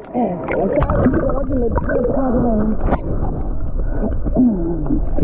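Muffled voices calling out, without clear words, over sloshing sea water, the whole sound dulled.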